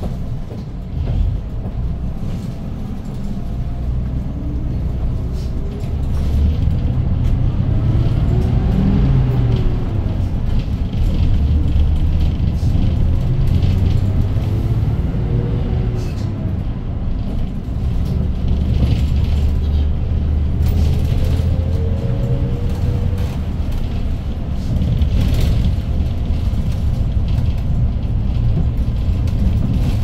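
Cabin sound of a Hyundai GreenCity city bus's C6GA compressed-natural-gas engine under way, a low rumble throughout. Its pitch climbs and drops several times as the bus accelerates and shifts through its five-speed manual gearbox.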